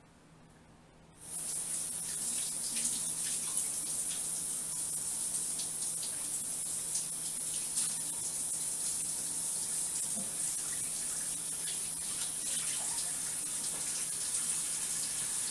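Kitchen faucet turned on about a second in, then running steadily into the sink with small irregular splashes.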